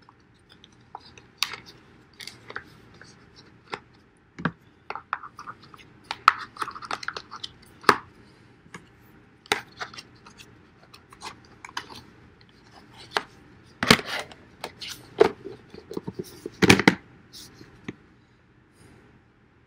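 Pieces of an 8-piece camping mess kit being nested and packed back together by hand: irregular clicks, clunks and rustles, with louder knocks about 14 and 17 seconds in.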